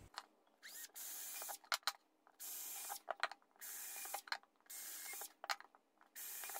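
A Makita cordless drill boring holes through a pine cleat, running in about five short bursts with brief pauses and a few light clicks between them.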